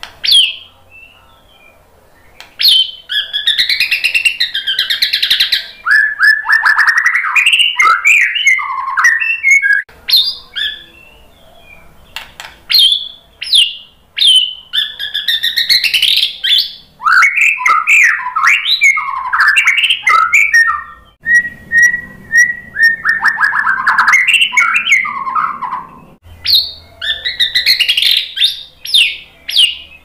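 White-rumped shama singing long, varied bouts of rapid whistles, trills and chattering notes, broken by short pauses between phrases.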